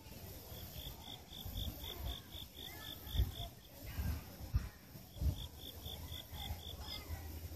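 Insect chirping in the grass: two runs of short, evenly spaced high chirps, about four a second, the first lasting about three seconds and the second starting about five seconds in. A low rumble with a few soft thumps sits underneath.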